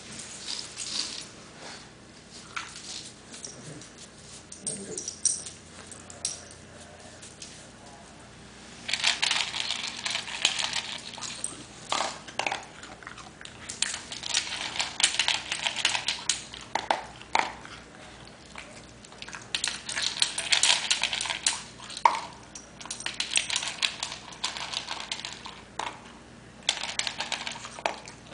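Beagles playing on a hard floor: scuffling and scraping noises in bursts, with sharp clicks, sparse at first and much busier from about a third of the way in.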